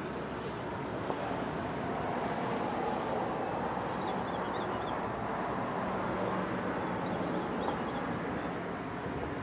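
Steady outdoor background noise on the microphone, with a few faint high chirps about four seconds in and again near the end.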